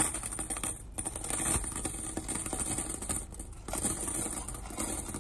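Quarters pouring from a snack machine's metal coin box into a zippered vinyl bank bag: a continuous clinking jingle of many coins sliding and dropping onto each other.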